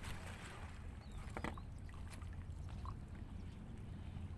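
Small waves lapping against shoreline rocks under a low, steady rumble, with a faint click about a second and a half in.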